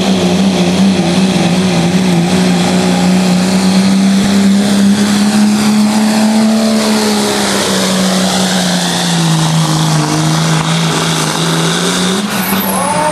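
Dodge pickup truck's engine held at high revs under heavy load while pulling the sled. The pitch holds steady, sags a little about two-thirds of the way through, then climbs again near the end.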